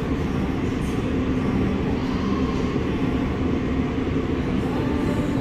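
Steady low rumble of restaurant background noise, with faint voices now and then.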